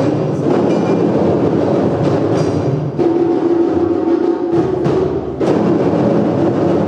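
Large ensemble of djembes and standing bass drums played together in a loud, continuous group rhythm.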